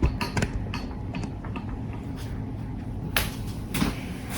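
Handling noise: a few sharp clicks and knocks at the start, then two brief rustling noises about three seconds in.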